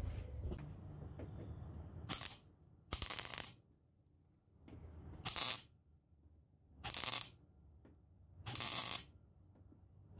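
MIG welder tack-welding thin sheet steel: five short bursts of arc noise about half a second each, one to two seconds apart, and a sixth starting at the very end.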